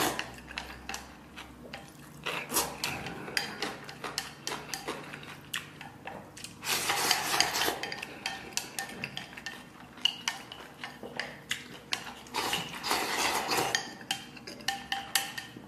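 Chopsticks or a spoon clicking and scraping against a bowl as rice is stirred into soup, with two longer stretches of scraping noise partway through.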